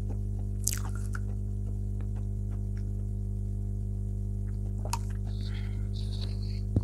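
Steady low electrical hum through the lapel microphone, with faint, soft mouth sounds of chewing chalk and a few small clicks. A sharp knock near the end.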